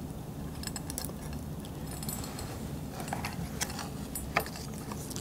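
Small metal chain being handled, its links clinking lightly now and then. The sharpest click comes a little over four seconds in.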